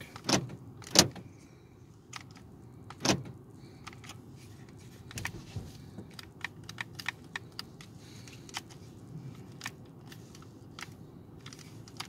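Sharp clunks and light clicks inside a Toyota Prius v's cabin as a newly fitted master window switch is tried out. A few sharp clunks come in the first three seconds, the loudest about a second in, followed by a run of small, quick clicks.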